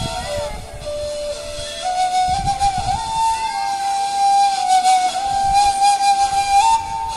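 Ney, the Turkish end-blown reed flute, playing a slow solo melody of long held notes that step up and down in small steps, with a breathy edge to the tone.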